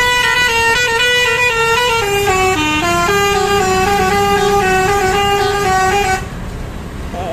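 Bus 'telolet' multi-tone musical horn playing a loud melody, its pitch stepping from note to note several times a second. It cuts off about six seconds in.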